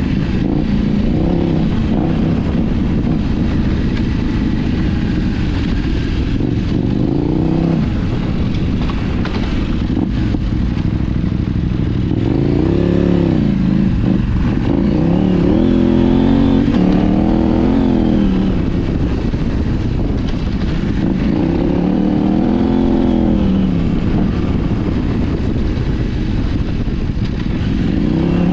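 KTM 790 Adventure R's 799 cc parallel-twin engine, breathing through an Arrow titanium slip-on and de-cat mid-pipe, running under load on a dirt trail, its note rising and falling several times as the throttle is opened and rolled off. A steady rush of wind and riding noise sits underneath.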